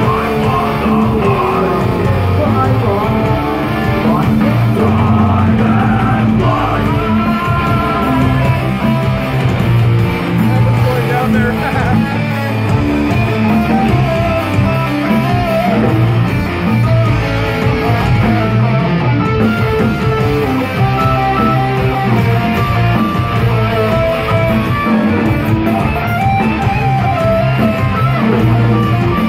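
A live rock band playing loud through a concert PA, dominated by heavy electric guitars over a steady, dense low end, with some singing.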